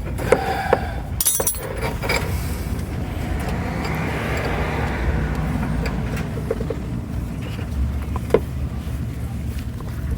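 Scattered sharp metal clinks and knocks of hand tools working a brake hose fitting loose, most of them in the first two seconds, over a steady low rumble.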